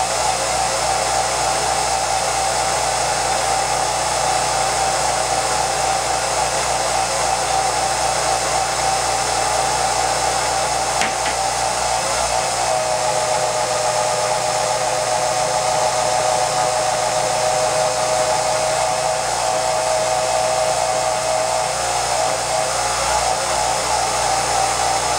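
Film projector running: a steady mechanical whirr with a motor whine that sits lower in pitch for about ten seconds midway, and a single click about eleven seconds in.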